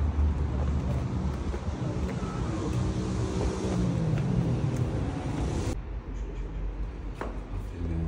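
Street traffic noise: a steady low rumble with a car passing. About six seconds in it cuts off suddenly to a quieter space with a few light taps.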